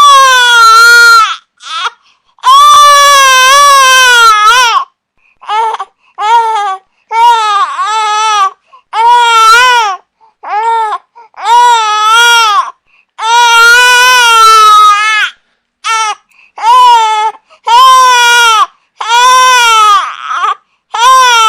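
A baby crying: a string of loud wails, some short and some held for about two seconds, each rising and falling in pitch, broken by brief pauses for breath.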